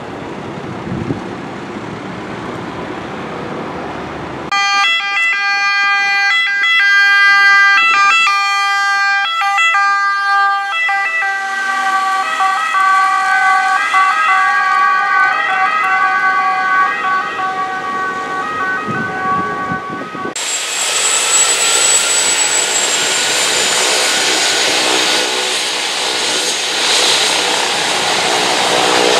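A fire engine's diesel engine and tyres run for the first few seconds. Then an ambulance's two-tone siren switches back and forth between two pitches for about fifteen seconds and cuts off suddenly. For the rest, an air-ambulance helicopter's turbines and rotor run loudly at low hover, with a high turbine whine.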